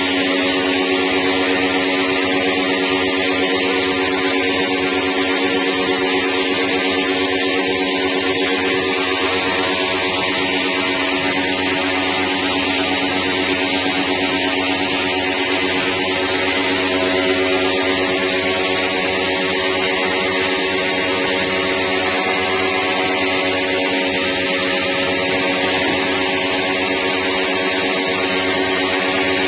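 Electric pressure pump running with a steady buzzing hum over the hiss of its water jet, washing an air conditioner's evaporator coil.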